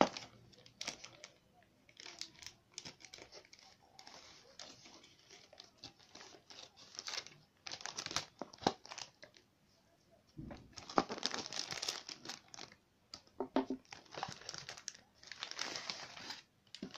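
Plastic courier mailer bag crinkling and rustling in irregular bursts as it is handled and opened by hand, loudest in two stretches in the second half.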